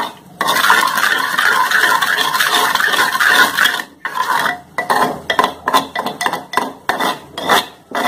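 Steel spoon stirring a sugar syrup in a clay pot, scraping against the pot's sides and bottom. A steady scrape for the first few seconds, then after a brief pause separate strokes about three a second.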